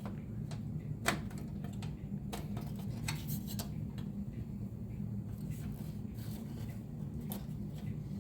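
Scattered light clicks and metal clinks of a computer case being handled and closed up, over a steady low hum.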